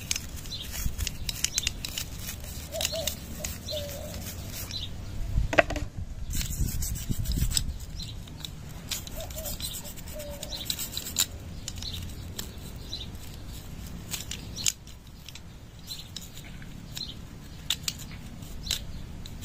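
A toothbrush scrubbing inside a motorcycle carburetor's bore: quick scratchy bristle strokes with small plastic-on-metal clicks, and a sharper knock about five and a half seconds in.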